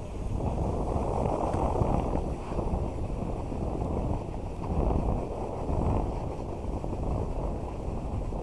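Wind buffeting a small action camera's microphone during a snowboard run, mixed with the board scraping over hard-packed snow; a low rushing noise that swells and eases every second or two.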